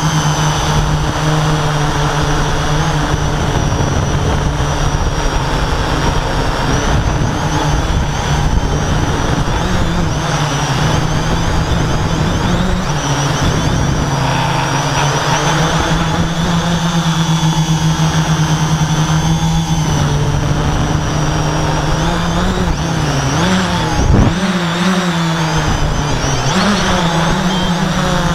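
Electric motors and propellers of a drone in flight, heard from the camera on board: a loud, steady high-pitched hum over a hiss of rushing air, its pitch wavering as the motors speed up and slow down. A brief knock comes late on.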